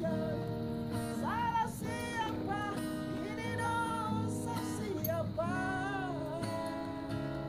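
Background music: a song with guitar accompaniment and a gliding melody line over it.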